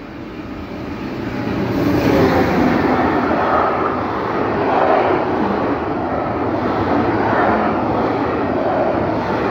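Rolling-highway freight train of road semi-trailers on low rail wagons passing close by at speed: a steady rush of wheels on rails that swells over the first two seconds and then holds.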